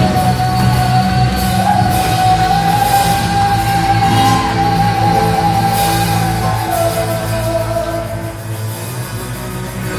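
Live rock band with a singer holding one long high note. The note breaks off about seven seconds in and the music quietens.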